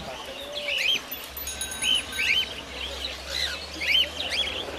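Caged cockatiels chirping: many short calls that rise and fall in pitch, repeated and overlapping from several birds.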